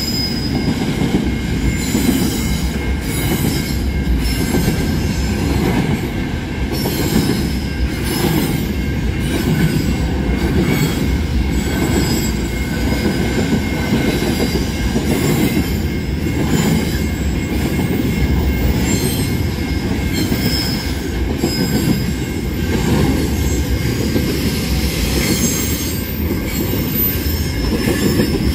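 Freight train of intermodal container wagons rolling past close by: a steady heavy rumble with repeated clicks of wheels over the rail joints and thin high wheel squeal coming and going.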